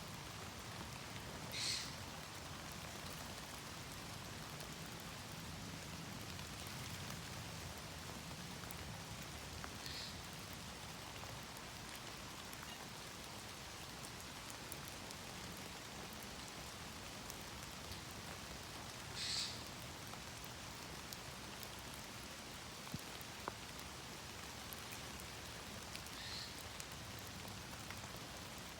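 Steady rain in woodland: drops pattering into puddles, dripping off the trees and drumming on a parachute canopy. Four brief high-pitched sounds stand out over the rain.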